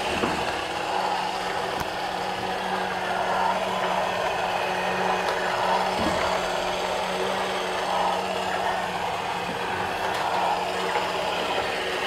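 Transparent plastic model inline engine kit running, its crankshaft, pistons, valve gear and fan turned by a small built-in electric motor: a continuous mechanical whirr over a steady hum.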